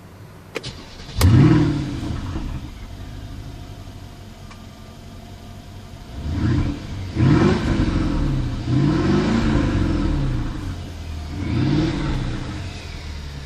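Mercedes-Benz S 500 Coupé's 4.7-litre twin-turbo V8 being started, heard from inside the cabin: a couple of clicks, then the engine fires about a second in with a loud flare and settles to a steady idle. From about six seconds on it is revved in several short blips, the pitch rising and falling each time.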